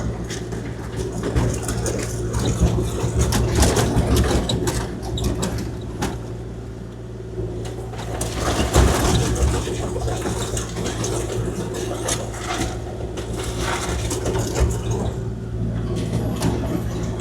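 Kubota KX040-4 mini excavator's diesel engine running steadily, with scattered clanks and scrapes as the bucket spreads and grades rock.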